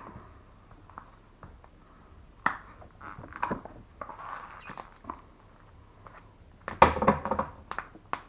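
Thick copper cables being pulled out of their shielding by hand: irregular scrapes, rustles and knocks, with the loudest cluster about seven seconds in.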